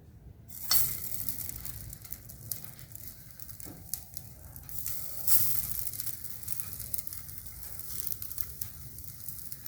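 Potato and sweet-corn lollipops sizzling as they shallow-fry in a little hot oil in a pan, a steady crackling hiss. It starts abruptly about a second in and jumps up again around five seconds.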